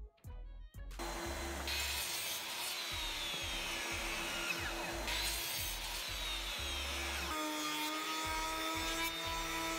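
Woodworking power tools: an electric sliding miter saw running and cutting pine boards, then from about seven seconds in a jointer/planer motor running with a steady hum as a board is fed through.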